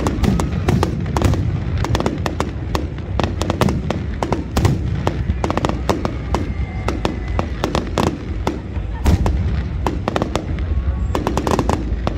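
Aerial fireworks display: shells bursting in quick succession as many sharp bangs and pops over steady low noise, with a denser flurry of bangs near the end.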